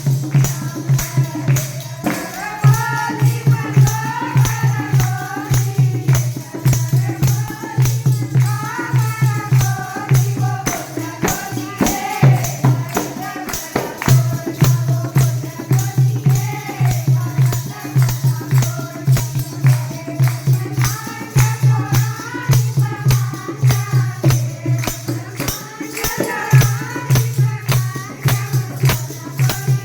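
Haryanvi devotional bhajan music: a wavering melodic line over a steady low drone, driven by fast, even percussion.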